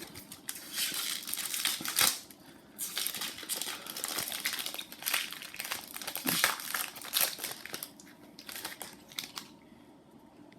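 Foil wrapper of a Magic: The Gathering booster pack crinkling and crumpling in the hands, in dense crackly runs with a short pause about two seconds in and dying down near the end.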